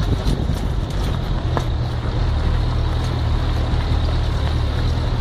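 Off-road 4x4 driving slowly along a dirt track, heard from inside the vehicle: a steady engine drone and tyre rumble, with scattered light clicks and rattles.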